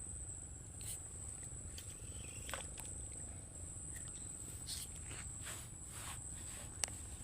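Insects trilling steadily and high-pitched, over a low steady rumble, with scattered soft rustles and one sharp click near the end.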